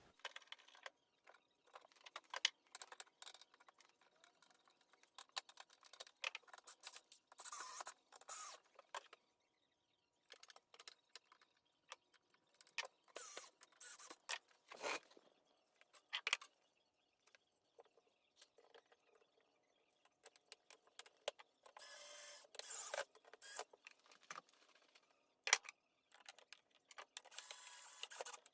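Workshop handling sounds: scattered clicks and knocks of a drilling jig and cabinet door being positioned, with a few short scraping, rasping bursts of about a second each.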